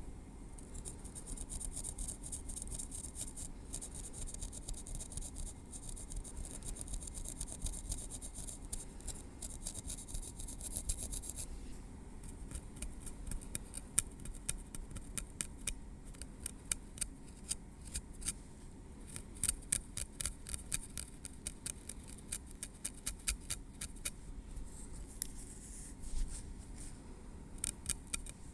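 Tweezers working close to the microphone through hair on a scalp. For about the first eleven seconds there is a dense, fast run of crisp high clicks and scratches; after that come separate sharp clicks, a few a second.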